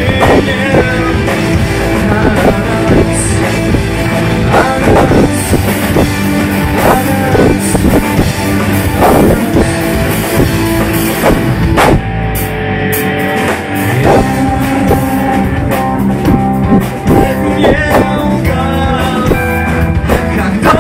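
Rock song with drum kit, guitar and a singing voice.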